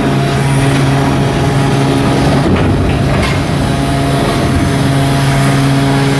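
A steadily running engine or machine with a constant low hum, which briefly breaks into rougher noise about halfway through before settling back.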